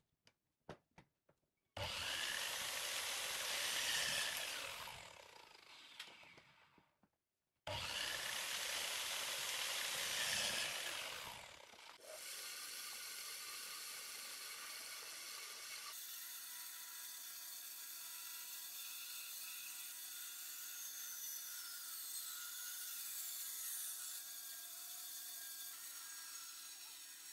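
A few light knocks of wood being set down, then a miter saw cutting through a pallet board twice, each cut starting suddenly and winding down afterwards. From about twelve seconds in, a bandsaw runs steadily as it cuts lengthwise along a pallet board.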